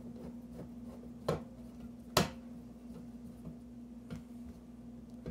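Steel gangable electrical switch boxes clicking as they are hooked together by hand: a few sharp metal clicks, the loudest about two seconds in, over a low steady hum.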